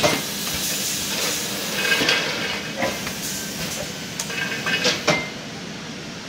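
GemiFill C-model automatic volumetric filling machine running, with its can conveyor: a steady mechanical noise with sharp clanks and clicks at irregular intervals as metal cans knock along the line under the filling head. The clanks stop about five seconds in and the noise quietens.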